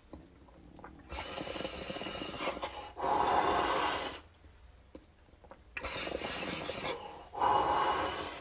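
A person taking two hits of rosin, each a long draw of about two seconds followed by a louder, forceful exhale of about a second.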